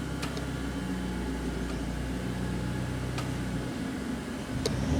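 Chevalier FSG-2A618 hydraulic surface grinder running, with a steady low hum from its hydraulic power unit as the table traverses and the cross-feed steps. A few faint ticks sound over the hum.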